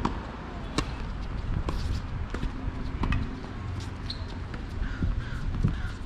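Tennis ball struck by rackets and bouncing on the court in a rally: a series of sharp knocks less than a second apart.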